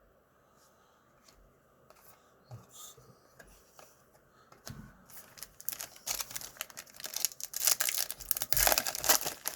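Plastic wrapper of a Donruss baseball card pack crinkling as it is torn open, beginning about five seconds in after a few light rustles and clicks of cards being handled.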